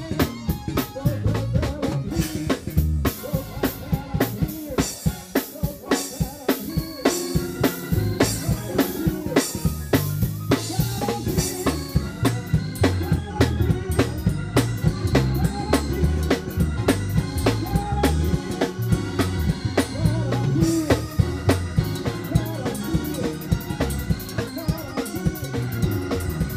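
Live gospel band jamming: a drum kit playing busy snare, rimshot and kick-drum fills, fastest in the first half, over electric bass, Hammond-style organ and keyboard chords.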